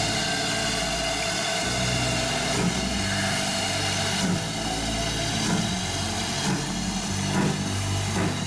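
Steady running noise of a heritage railway train on the move, a continuous rumble with a few low droning tones.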